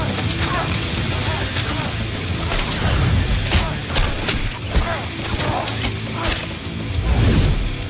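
Film fight soundtrack: a dramatic score under a rapid, uneven series of heavy blows, hits and crashes from sound effects.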